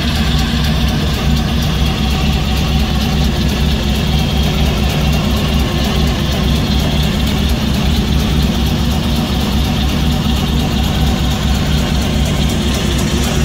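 1931 Ford Roadster hot rod's engine idling steadily, with no revving.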